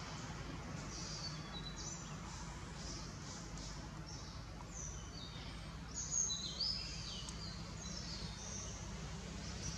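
Short high-pitched chirps, several of them falling in pitch, bunched in the middle and loudest about six seconds in, over a steady low background rumble.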